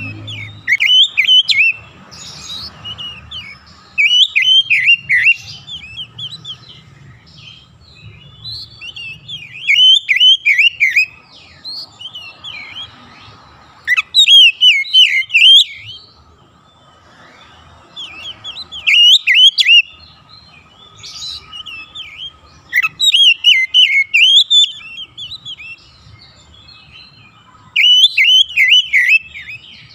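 Oriental magpie-robin singing: loud, short bursts of rapid whistled notes, each lasting one to two seconds, repeated every few seconds.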